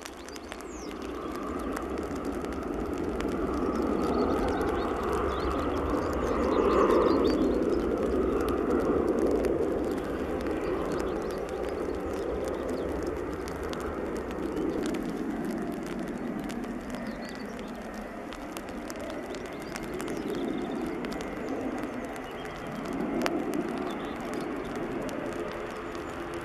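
Jet noise from the Rolls-Royce Trent XWB turbofans of an Airbus A350-900 on final approach: a rushing sound with a fan whine that swells over the first several seconds, then holds fairly steady as the airliner comes in to touch down.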